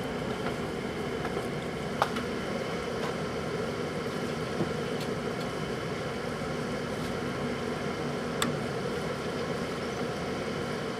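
Microwave oven running: a steady hum, broken by a few sharp clicks, the loudest about two seconds in and another just past eight seconds.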